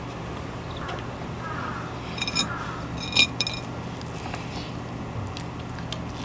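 Dishes clinking: a few short, light ringing clinks about two seconds in and again, loudest, about three seconds in, over a steady low hum.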